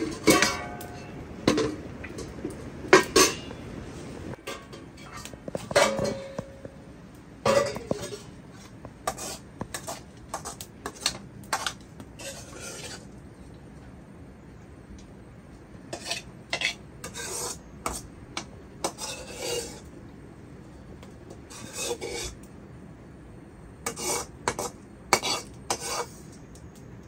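Metal cooking pots and utensils clinking and scraping in irregular spurts, a few clinks ringing briefly.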